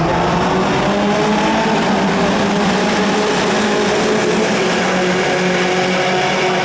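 A pack of Mazda-powered Skip Barber open-wheel race cars at the start of a race, running past together at speed. Many engine notes are layered at once in a steady, loud din, some of them slowly rising in pitch.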